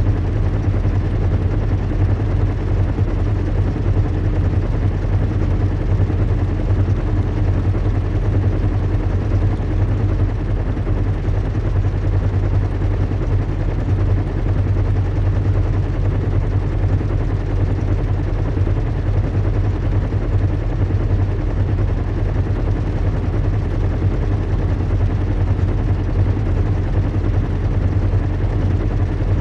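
Recreated sound of a large airship in flight: a steady, low engine hum over a rushing noise, with no change in pitch or level.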